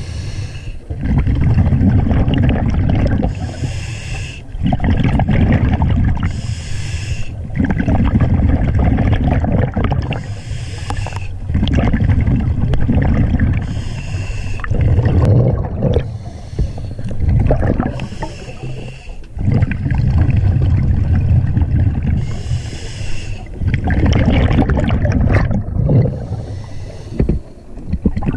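Diver breathing through a scuba regulator underwater: a regular cycle about every three seconds, each breath a short hiss followed by a longer, loud rush of exhaled bubbles.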